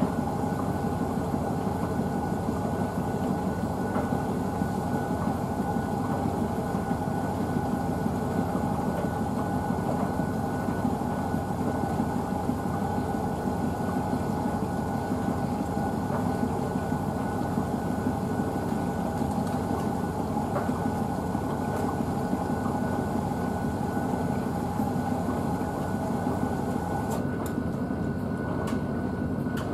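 Blomberg WNF9448 AE20 front-loading washing machine running in the early part of a Synthetics 60 wash: a steady hum with a high whine on top. The whine stops about 27 seconds in, followed by a few clicks.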